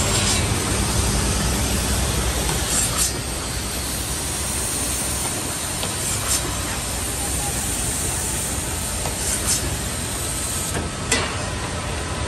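Woodmaster automatic corner-block cutting and drilling machine running steadily, with short sharp hisses of compressed air from its pneumatic cylinders five times, roughly every three seconds.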